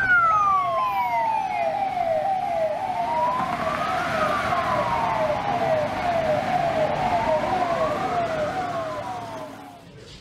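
Emergency-vehicle siren with two patterns layered: a slow wail rising and falling about every four seconds over a quick falling yelp that repeats about twice a second. It fades out near the end.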